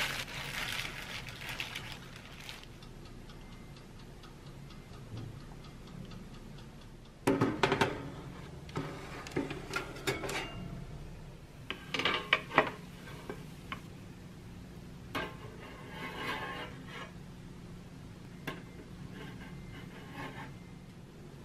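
Kitchen handling sounds while baking cookies: a plastic glove crinkling, then sharp metal clanks and clicks from a baking tray and the oven's wire rack, and later a metal spatula clinking and scraping on a wire cooling rack, with a low steady hum underneath.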